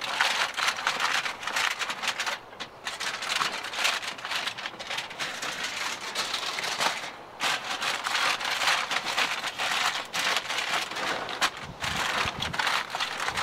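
Aluminum foil crinkling and crackling as it is crimped tight around the rim of an aluminum pan, in bursts with brief pauses.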